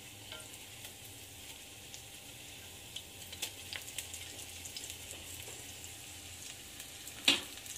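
Corn fritters frying in hot oil in a cast-iron skillet: a steady sizzle with scattered small crackles and pops, and one sharp click about seven seconds in.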